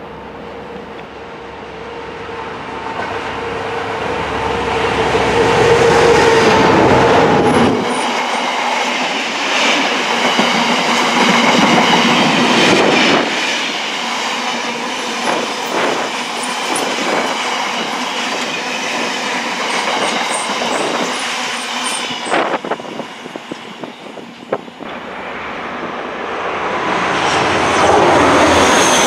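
Diesel-hauled freight train passing: a steady engine note builds as it approaches, then a long line of box wagons goes by with wheels clicking over rail joints and high-pitched wheel squeal. Near the end an InterCity 125 high-speed train approaches at speed, its noise rising.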